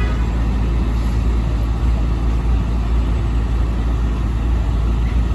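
Orion VII NG transit bus idling, a steady low engine rumble with no change in pitch, over street noise.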